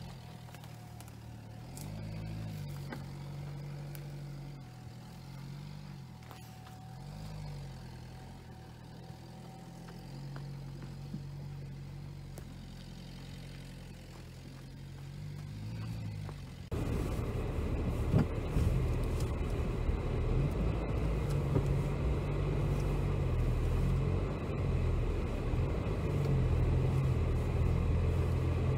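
Dacia Duster engine running in low gear as it crawls over a bumpy dirt trail, its pitch rising and falling again and again with the throttle. About two-thirds of the way through the sound jumps to a much louder car engine with rough knocking and rattling from driving over uneven ground, with one sharp knock shortly after.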